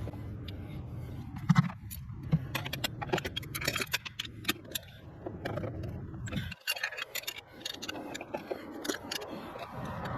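Irregular metallic clicks and clinks of hand tools and small metal hardware as turbo-to-manifold nuts are worked on in a cramped engine bay.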